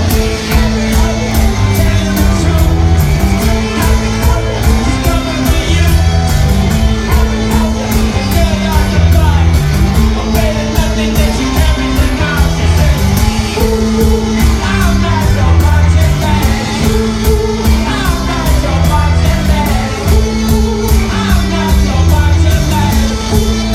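Live rock band playing loudly, with a steady drum beat, a repeating bass line, guitars and some singing.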